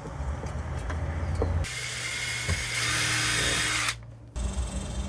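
Power drill running for about two seconds as it drills or drives a screw into the wall for a doorbell mounting bracket, then cutting off suddenly. A few clicks and handling come just before.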